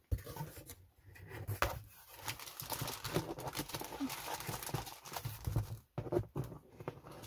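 Handling noise from craft supplies being moved about: irregular rustling with light clicks and knocks.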